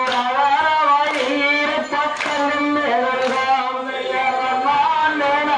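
Singing of a Kongu kummi folk song, unaccompanied, with sharp hand claps about once a second from the dancers clapping in time.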